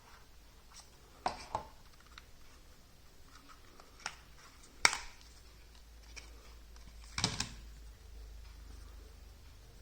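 Handling noise from an iPhone silicone case and its packaging: several short sharp clicks and taps, the loudest about five seconds in, with a small cluster near the end.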